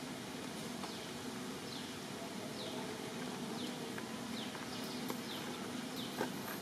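Steady outdoor background noise with a short, high chirp that slides downward, repeated about once a second, and a few faint clicks near the end.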